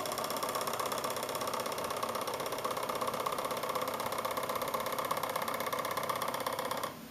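Stepper motors from salvaged DVD drives driving a homemade laser engraver's carriage: a steady buzzing whine with a fast stepping rhythm. It cuts off sharply near the end as the engraving finishes.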